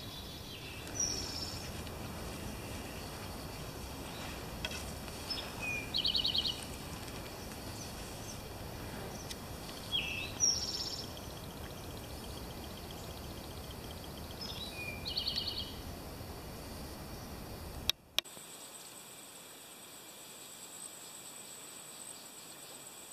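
A songbird repeats a short phrase, a quick slurred note and then a fast buzzy trill, about every four to five seconds over a soft outdoor background hiss. Near the end, after a cut, a steady high-pitched insect drone takes over.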